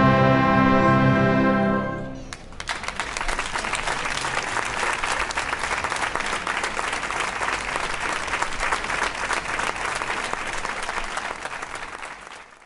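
Symphonic wind band holding a loud final chord that cuts off about two seconds in, followed by audience applause that fades out near the end.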